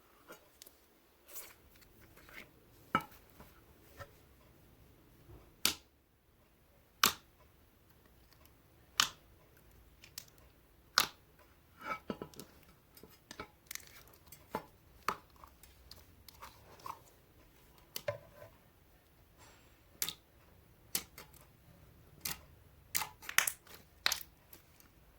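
A tub of thick, glossy slime being opened and handled by hand: scattered sharp clicks and small pops at irregular intervals, a few of them loud, with quieter rustling between.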